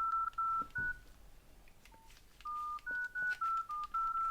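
Nokia 5610 XpressMusic keypad tones: short two-tone dialing beeps, a quick run at the start, a pause with one lone beep, then another quick run near the end, as a service code is keyed in to call up the phone's life timer.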